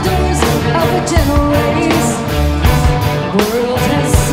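Rock band playing: a woman singing lead over electric guitars, bass and a drum kit keeping a steady beat.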